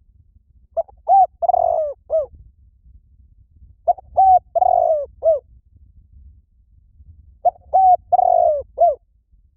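Spotted dove cooing, a call recording used to lure spotted doves. Three phrases come about three and a half seconds apart. Each is a few short coos with one longer, drawn-out note near the middle.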